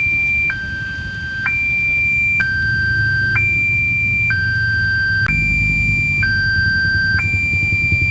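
Railway level-crossing warning alarm sounding: an electronic two-tone hi-lo alarm alternating between a higher and a lower tone, each held about a second. A low steady rumble runs underneath and grows louder from about five seconds in.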